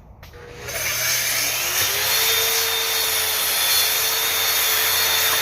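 Kreg track saw starting up about half a second in, its motor whine rising to speed, then running steadily as it cuts along the edge of a wooden desktop.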